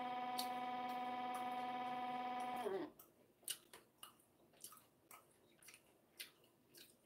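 A steady electronic buzzing tone with many overtones holds one pitch, then bends downward and cuts off about two and a half seconds in. Faint scattered clicks follow.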